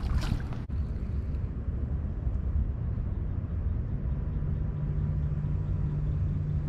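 Steady low outdoor rumble, with the drone of a distant engine coming in about four seconds in and holding steady.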